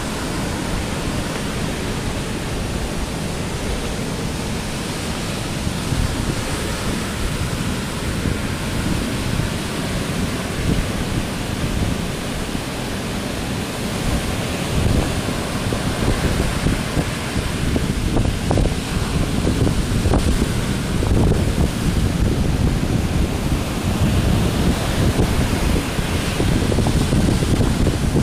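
Tropical storm wind buffeting the microphone over the steady rush of heavy surf breaking on the beach. It grows somewhat louder in the second half.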